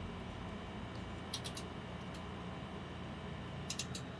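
Screwdriver working a small screw inside a desktop PC case: short runs of light, quick clicks, about four at a time, once in the middle and again near the end, over a steady low hum.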